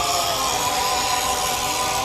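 Background music with a held, slowly wavering melody line over a steady hiss-like haze.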